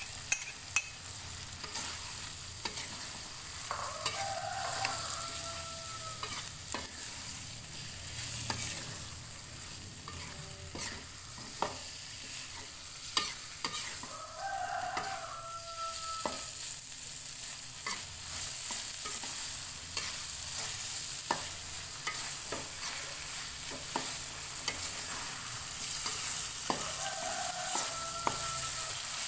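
Green mussels, chillies and tomato sizzling in oyster sauce in an aluminium wok, with the metal spatula scraping and clicking against the pan as the food is stirred. A rooster crows three times, about ten seconds apart.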